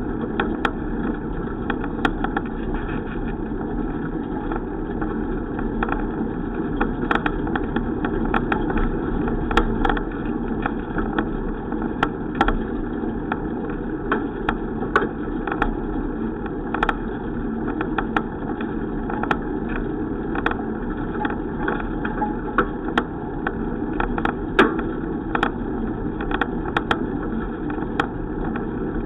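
Steady rumbling noise of a bicycle ride, with frequent small irregular clicks and rattles.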